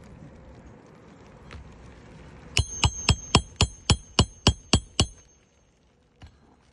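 Hammer driving a roofing nail to refasten an asphalt shingle: about ten quick, evenly spaced strikes with a metallic ring, stopping about two-thirds of the way through.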